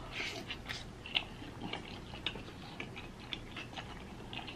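Close-up chewing of a bite of fried beef birria taco: irregular small wet clicks and crackles from the mouth, a few a second.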